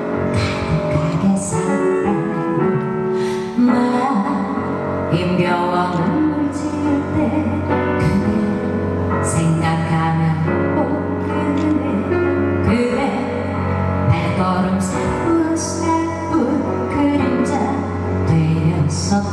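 Music: a slow pop ballad with instrumental accompaniment, played at steady concert volume.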